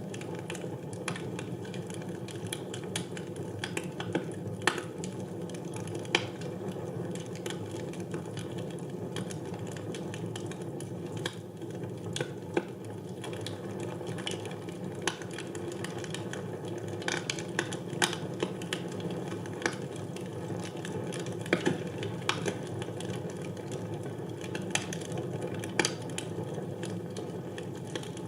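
Wood fire burning in a fireplace: a steady low rush of flames with irregular crackles and sharp pops from the burning logs.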